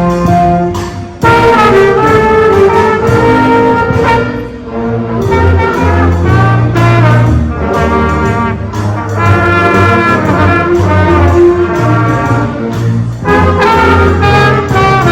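Middle school band playing a holiday tune, with trumpets and trombones carrying sustained chords that change every second or so.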